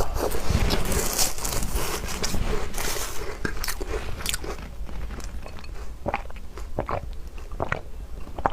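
Close-up crunching and chewing of crumbly walnut cookies: dense crunching through the first few seconds, then slower, separate crackles and mouth clicks as the chewing goes on.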